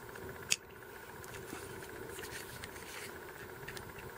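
Adjustable wrench tightening a threaded fitting on an air filter/regulator housing: one sharp metallic click about half a second in as the wrench is repositioned, then a few faint ticks over a low steady hum.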